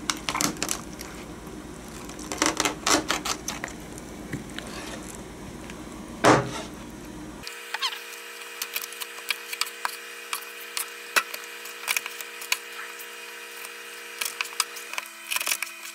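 Large kitchen knife chopping and cutting through raw chicken pieces on a plastic cutting board: a run of irregular sharp knocks, the loudest about six seconds in.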